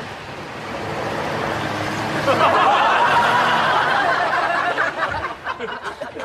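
A car drives up and pulls in. Its noise swells from about a second in, is loudest in the middle, and eases off near the end.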